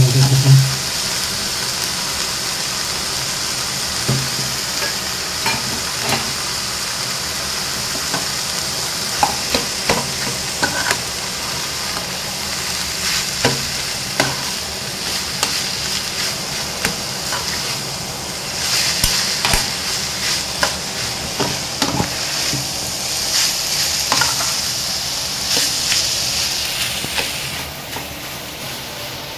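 Chicken and onions frying and sizzling in a pan, with a spatula scraping and tapping the pan as they are stirred. The sizzle grows louder for several seconds in the second half.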